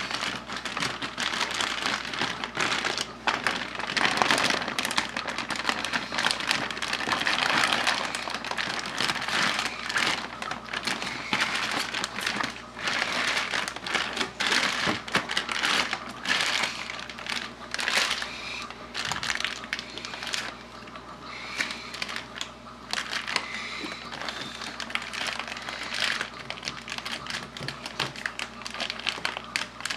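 Thick plastic fish-transport bag crinkling and crackling continuously as hands twist and grip its neck.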